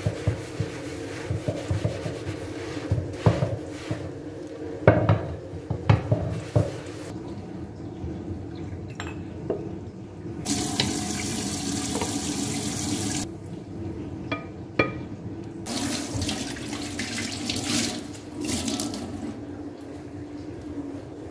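A sponge scrubs a wooden cutting board in a kitchen sink, with several sharp knocks of the board against the sink. Then a kitchen tap runs into the sink twice, for about three seconds each time.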